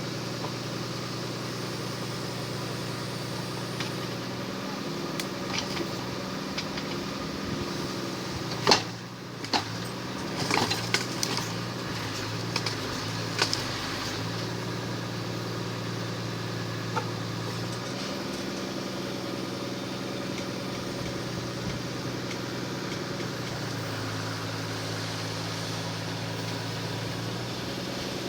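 Engine and hydraulics of a Munck GFT 10.000 forestry crane running steadily, the note stepping up and down in pitch a few times. A cluster of knocks and clanks comes about nine to fourteen seconds in, the loudest near nine seconds.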